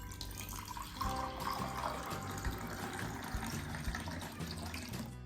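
Water running from a tap into a sink, starting about a second in and stopping just before the end, over faint background music.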